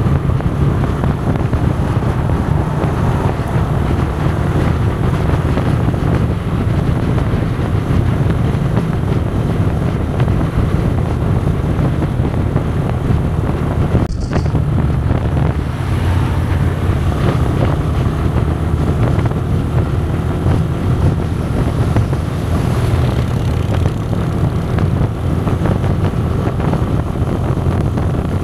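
Motorcycle riding at steady highway speed: wind rushing over the microphone with the engine of a Yamaha Fazer 250, a single-cylinder bike, running underneath as a low, even rumble. The sound drops out for a moment about halfway through, then carries on the same.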